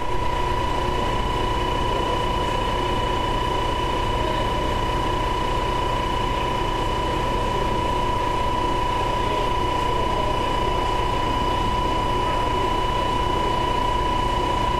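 Diesel railcar idling at a platform, a steady low engine rumble. A steady high-pitched tone sounds over it.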